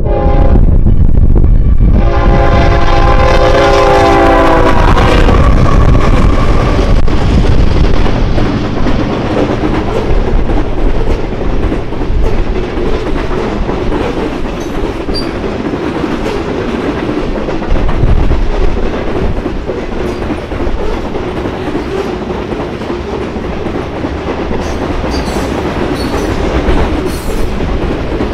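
Union Pacific freight train's diesel locomotives sounding their multi-note air horn: a short blast at the start, then a longer blast of about three seconds starting about two seconds in, over the heavy rumble of the engines going by. After that, the steady rolling rumble and clickety-clack of freight cars passing on the rails.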